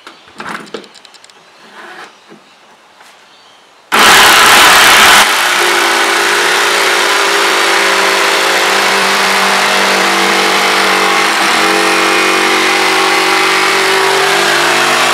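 Jigsaw switched on about four seconds in, running at full speed with a fine-tooth all-purpose blade and cutting through an aluminium splashback panel. Its first second is the loudest, then it settles into a steady buzz as the cut goes on.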